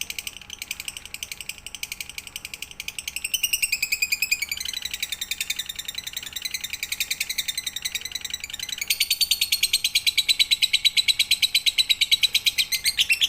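Lovebird singing a fast, continuous chattering trill of about nine notes a second, with a falling glide about four seconds in and louder from about nine seconds in.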